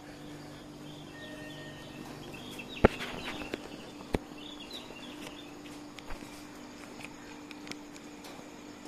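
Outdoor railway platform ambience: small birds chirping, under a steady low hum. A sharp click about three seconds in is the loudest sound, with a lighter click about a second later.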